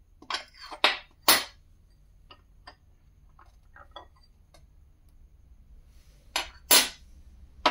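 Old copper coins clinking against a glass bowl and a hard stone tabletop as they are handled: three sharp clinks in the first second and a half, a few faint ticks, then more sharp clinks near the end.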